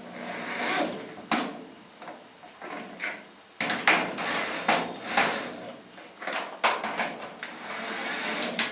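Irregular clanks and knocks with short scrapes, from steel building parts and tools being handled during assembly.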